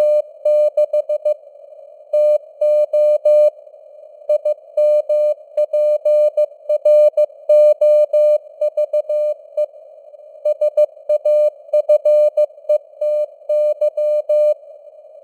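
Morse code (CW) sent at 15 words per minute: a single mid-pitched tone keyed on and off in dots and dashes, with short pauses between words. A narrow band of simulated radio hiss sits around the tone, and the signal strength varies a little, as with QSB fading.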